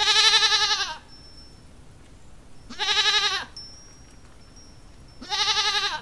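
Recorded goat bleating three times, each bleat about a second long with a quavering pitch, a couple of seconds apart.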